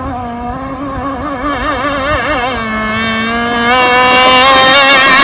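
Enforcer Stingray RC hydroplane running flat out across the water. Its motor makes a high whine whose pitch wavers several times a second as the hull skips. It grows louder about three and a half seconds in as the boat comes nearer.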